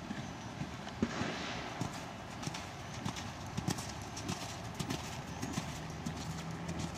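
A horse's hooves thud onto a sand arena as it lands after a jump about a second in, then its hoofbeats go on in a cantering rhythm on the soft sand footing.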